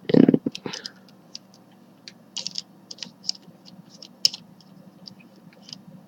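Small plastic pieces of a Rubik's brand 4x4 cube clicking and clacking as they are handled and fitted onto the cube's core, in short irregular clicks. A dull knock comes right at the start.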